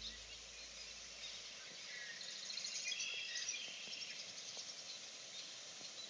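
Faint outdoor ambience with small birds chirping in short, rapid trills around the middle. A low steady tone fades away in the first second or two.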